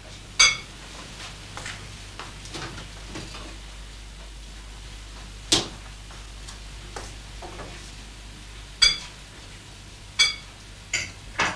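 Scattered sharp clinks of kitchen utensils and dishes at a sink, some with a brief metallic ring, a few coming close together near the end, over a low steady hum.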